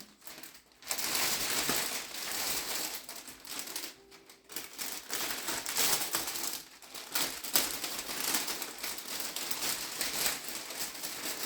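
Crinkling and rustling of wrapping being handled, in uneven bursts with brief pauses just after the start and about four seconds in, and a few sharp crackles.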